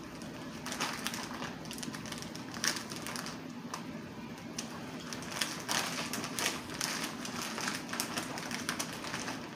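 Large zip-top plastic bag being pressed shut along its seal by hand: an irregular run of small clicks and plastic crinkling from the zipper track and the bag, with the ice inside shifting, over a faint low hum.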